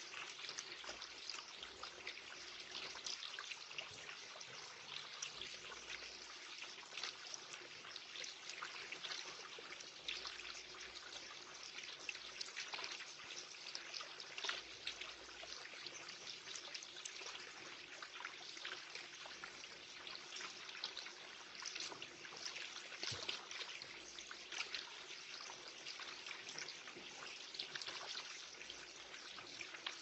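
Small garden water feature trickling steadily into a pond, with many brief light splashes and drips as a goldfinch bathes in the shallow water.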